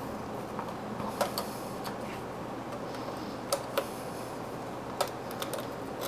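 A string of irregular, sharp light clicks, about eight or nine of them, over the steady whir of a running desktop PC's fans.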